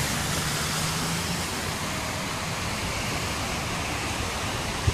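Steady rushing of floodwater flowing fast across a flooded freeway, with a single short thump at the very end.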